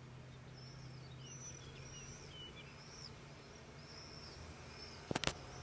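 A small bird chirping repeatedly, short arched chirps about twice a second, over a faint steady low hum. Two sharp clicks come close together about five seconds in.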